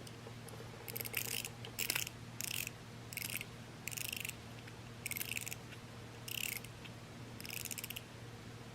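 Clockwork motor of a Tomy wind-up Thomas toy engine being wound: about eight short bursts of fine ratcheting clicks, one turn at a time, roughly a second apart.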